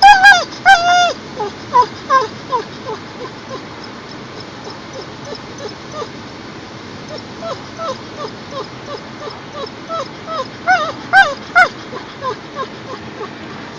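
Dog whining and whimpering in a long run of short, high cries that each bend down in pitch, about two or three a second, loudest at the start and again about eleven seconds in: distress at being strapped into a seat belt harness.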